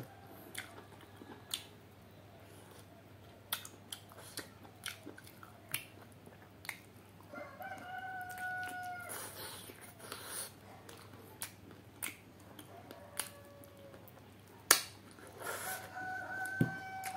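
Close-up chewing, sucking and lip-smacking as chicken feet in curry are eaten by hand, heard as scattered wet clicks and smacks. A rooster crows twice in the background, about seven seconds in and again near the end.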